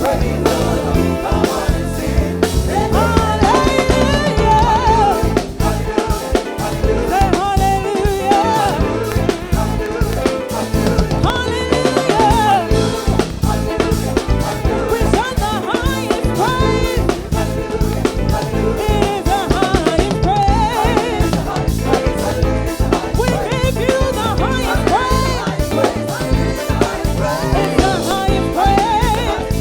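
Gospel praise-and-worship song with singing over a band, driven by a drum kit playing a steady beat.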